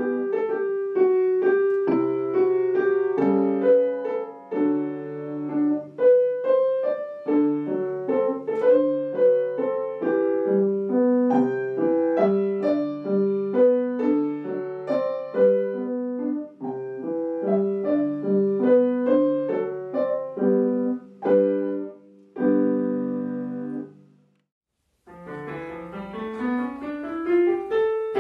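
Solo piano piece played on an upright piano, closing with a held final chord that dies away about 24 seconds in. After a second of silence, another piano piece starts on a digital keyboard with a rising run.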